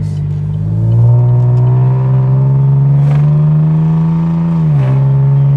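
V6 Camaro with a straight-piped muffler delete accelerating: the exhaust note swells about a second in and climbs slowly in pitch, then dips for a moment near the end as the automatic shifts up and pulls again. The sound is loud.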